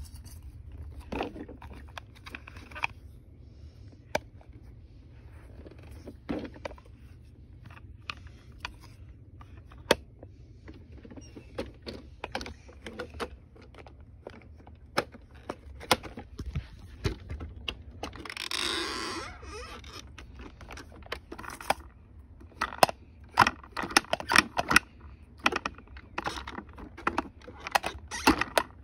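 Handling noise from small hard objects: irregular light clicks, taps and scrapes, coming faster in the last several seconds, with a longer rustling noise lasting about a second and a half about two-thirds of the way in.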